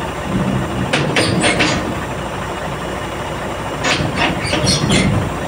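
SANY crawler crane's diesel engine running steadily as the crane creeps on its steel tracks on a lowbed trailer deck, with metallic clanks and squeaks from the tracks about a second in and again near the end.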